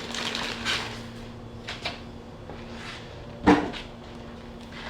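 Handling knocks and rustles while working on a small new air compressor and its parts, with one sharper, louder knock about three and a half seconds in.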